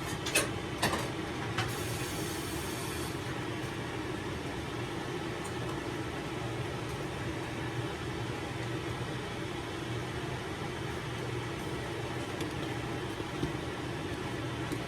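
Steady low mechanical hum, with a few sharp clicks and a short scrape in the first three seconds: a utensil knocking and scraping against a bowl as cornbread batter is transferred into a baking pan.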